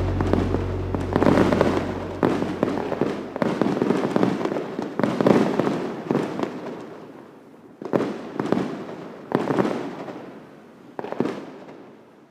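Aerial fireworks bursting one after another, each bang trailing off as it dies away. The bursts come about once a second at first, then spread out, with the last one near the end.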